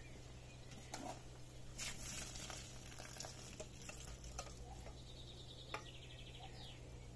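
Faint clinks and scrapes of a stainless steel saucepan of cooked pearl barley being tipped and scraped out, with a short hiss about two seconds in. A bird trills briefly near the end.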